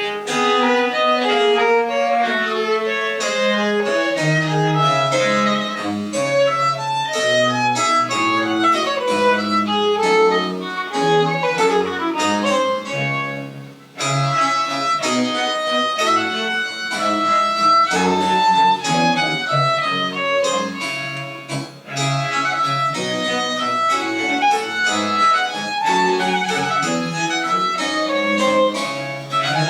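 Live French Baroque chamber music: a violin leads over bowed strings and a low bass line, played in phrases with brief breaks about halfway through and again about two-thirds of the way in.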